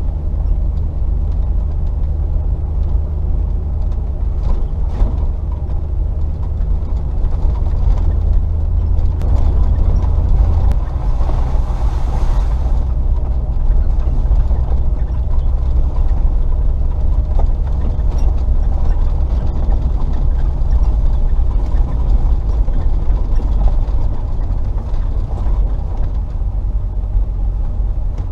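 Range Rover P38's 4.0 V8 engine running steadily at low revs while the vehicle drives a rough track, with occasional knocks and rattles. A brief rushing hiss comes about eleven seconds in.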